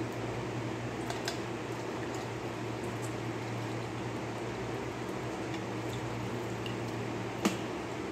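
Lemons being squeezed by hand over a metal strainer, with soft squishing and liquid sounds, a few light clicks about a second in and a sharper one near the end, over a steady low hum.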